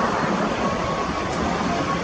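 Airbus A320neo jet engines running with a steady rushing noise and a faint, intermittent whine.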